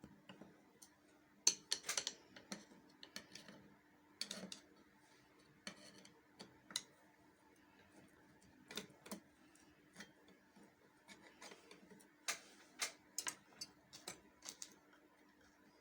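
Irregular light clicks and taps of a screwdriver on the metal needle-plate screws of an industrial sewing machine as they are loosened, over a faint steady hum.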